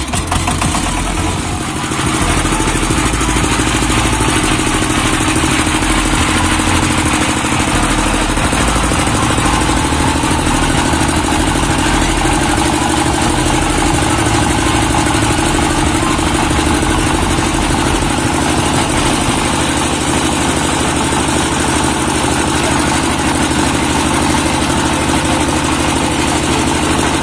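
Single-cylinder diesel 'shallow machine' engine picking up to a steady run about two seconds in, then running on steadily under load as it drives a belt-driven mustard oil expeller.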